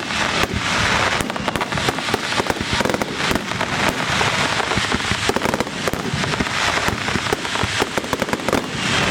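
Starmine fireworks barrage: a dense, continuous run of bangs and crackling as many shells burst in rapid succession.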